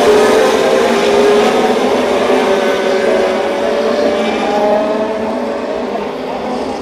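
Pack of Formula 1 cars with 1.6-litre turbocharged V6 hybrid engines running at speed, several engine notes overlapping over a hiss. The sound fades over the last few seconds as the field moves away.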